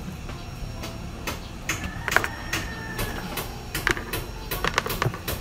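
Irregular clicks and light knocks of a digital multimeter and its probe leads being handled and moved across a workbench.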